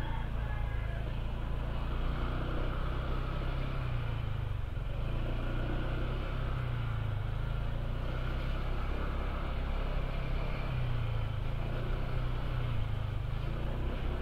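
Honda ADV160 scooter's single-cylinder engine running at riding speed, its pitch rising and falling slightly, with a steady rush of wind and road noise.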